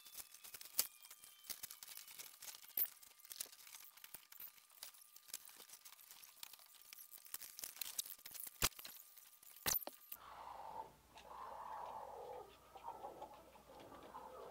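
Scratchy rustling and scraping with frequent sharp clicks and knocks as wood shavings and cardboard are cleared out of a wooden chicken brooder. About ten seconds in this gives way abruptly to hens clucking.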